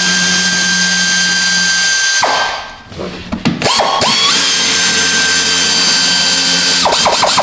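Power ratchet running steadily as it backs a bolt out of a truck's fender flare, stopping about two seconds in. After a pause with a few short blips it spins up again and runs for about three seconds, ending in several quick on-off blips of the trigger.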